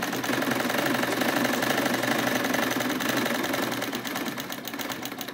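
Sewing machine stitching a skirt dart at a fast, steady rate, the needle strokes coming in a rapid even chatter, then easing off and stopping near the end.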